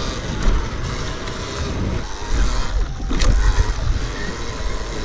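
Wind rumbling on the microphone with tyre and chassis noise from an electric trials motorcycle riding over gravel and then grass, the loudness bumping unevenly with the terrain.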